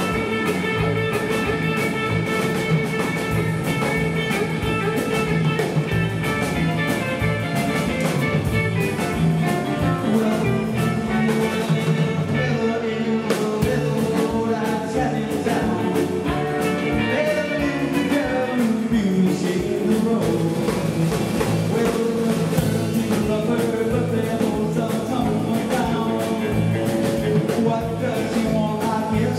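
A live rock and roll band playing: electric guitars over a steady drum-kit beat.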